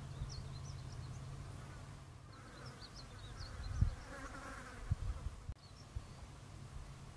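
Low buzz of a flying insect, steady at first and then breaking up after about two seconds, with two dull low thumps near the middle. Faint high chirps of a small bird come in two short runs.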